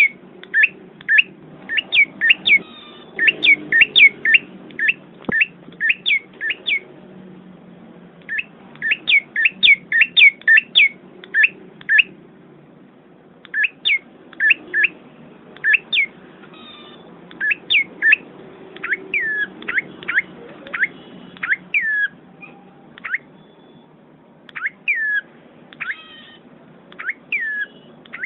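Small forest bird calling: runs of short, sharp chirps, each dropping quickly in pitch, several a second with brief pauses between runs. In the second half the calls come more sparsely.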